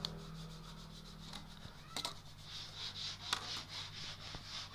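Steel tape measure handled against rough-sawn mahogany boards: a few sharp clicks and a pulsing, scraping rub, over a steady low hum.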